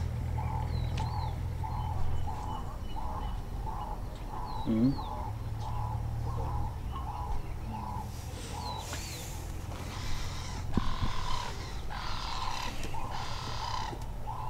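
Outdoor wildlife sounds: a bird gives a short note over and over, about twice a second, over a steady low hum, with a few high chirps. In the second half come four rough, breathy calls of about a second each.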